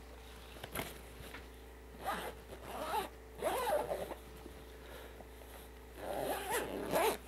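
Zipper on a camera bag being pulled in three separate strokes, with the rustle of the bag's fabric.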